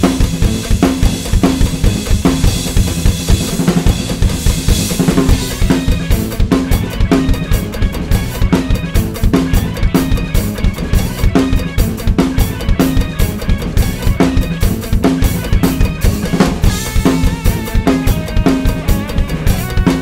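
Sonor Essential Force drum kit played in a steady groove of dense bass drum and snare strokes over a backing track. Cymbal wash fills the first five seconds, then the strokes turn crisper and more separate.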